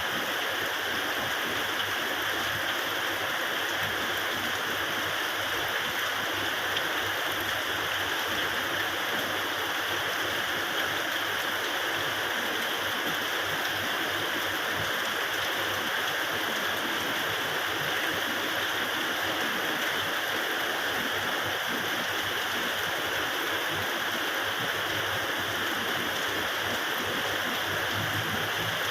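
Steady rain falling, an even, unbroken hiss of water that holds at one level throughout.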